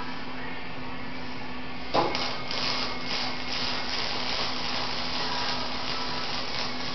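Electric arc welding on a steel drum: a steady hum from the welder, then the arc strikes with a sharp crack about two seconds in and runs on as a steady crackling hiss.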